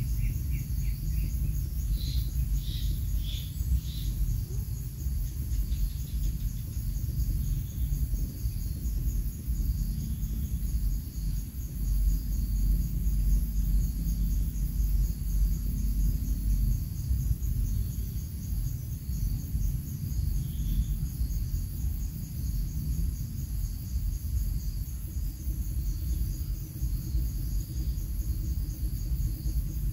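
Outdoor field ambience: a steady low rumble, like wind on the microphone, under a continuous high-pitched trill of insects such as crickets. A few short high chirps come in the first few seconds and once more near the middle.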